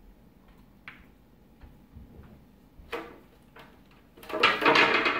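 A cat's paws on a sliding glass door: a few light taps, then about a second of loud scrabbling against the glass near the end as the cat goes after a fly.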